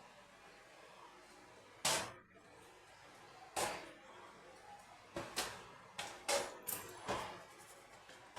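A series of about nine sharp clicks and knocks, irregularly spaced and bunched in the second half, from desktop computer hardware being handled: case and drive parts knocking together.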